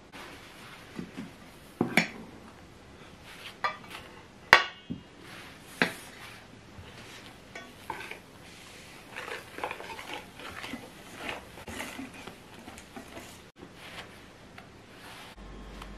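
A spatula knocking and clinking against stainless steel mixing bowls: a few sharp knocks in the first six seconds, the loudest about four and a half seconds in with a short metallic ring. It is followed by softer scraping and clicking as meringue is scooped and folded into cake batter.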